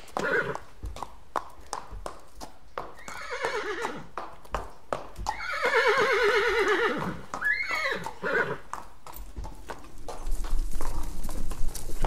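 Horse hooves clip-clopping, with several whinnies; the longest is a quavering whinny about halfway through. A louder rumbling noise joins near the end.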